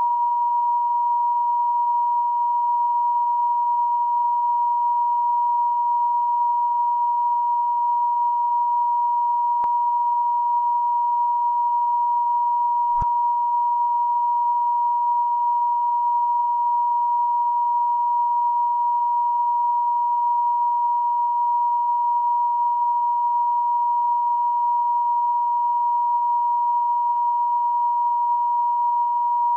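Steady single-pitch test tone of the kind broadcast with colour bars, held unbroken at an even level. Two faint clicks come partway through.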